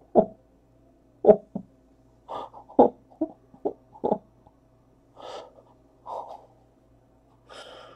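A person breathing hard in excitement: irregular gasps and sharp, breathy exhales, some with a little voice in them, about a dozen in all.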